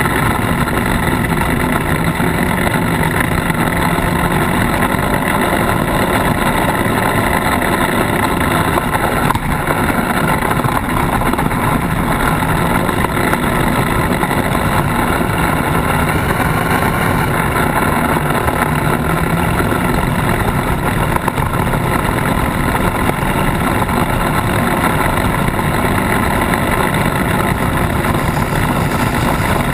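Polaris RZR side-by-side engine running at a steady pace while driving, heard close up from the vehicle's bumper, mixed with tyre noise on dirt and gravel.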